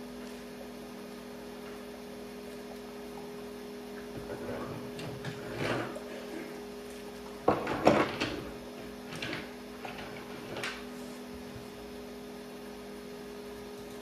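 A steady two-tone electrical hum with scattered knocks and clicks; the loudest clatter comes a little past halfway, and a few lighter knocks follow.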